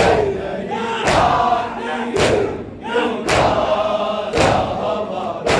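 Men's voices chanting a noha lament together, with sharp chest-beating slaps (matam) in time, about one a second.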